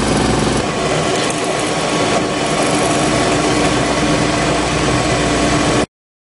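GenySIS II portable CNC milling machine running and milling at a bolt hole, a steady mechanical run with several held tones over a dense grinding noise. The sound shifts slightly about half a second in and cuts off suddenly near the end.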